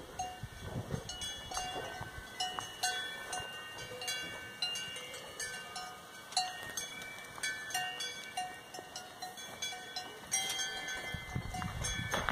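Alpine cowbells clanking irregularly as cows move about, several bells ringing at different pitches.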